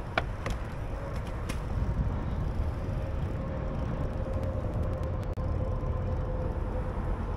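Steady low rumble of wind and water around a bass boat on the lake, with a faint steady hum. A few light sharp clicks come in the first second and a half.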